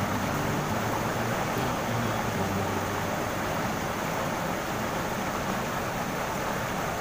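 A river flowing over and around rocks: a steady rushing of water.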